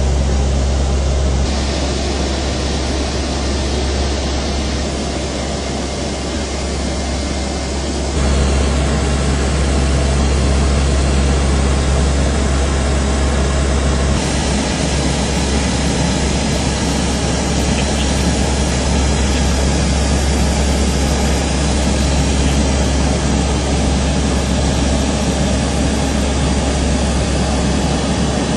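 Steady low engine drone with a noisy hiss over it. Its tone changes abruptly a few times, at about 1.5, 8 and 14 seconds in.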